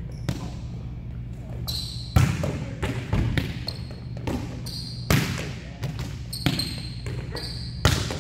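Volleyball practice in a gym: sharp smacks of hands hitting volleyballs and balls bouncing off the court, with the three loudest hits about three seconds apart. Short sneaker squeaks come between the hits over a steady background hum.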